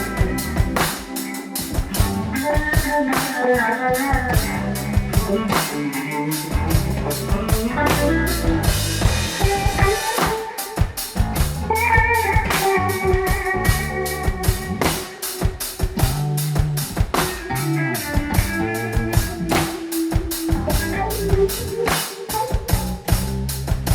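Live band playing an instrumental passage: a drum kit keeps a steady beat under bass and melodic guitar lines.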